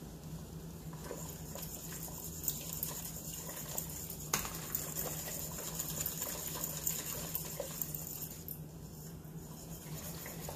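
A wire whisk stirring a pot of chocolate syrup mixture (sugar, water and cocoa) in a stainless steel stockpot. The liquid sloshes, and the whisk clinks sharply against the pot a few times, over a steady low hum.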